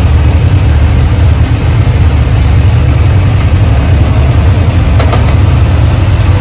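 Side-by-side UTV engines idling steadily, a loud, even low rumble, with a couple of faint clicks about five seconds in.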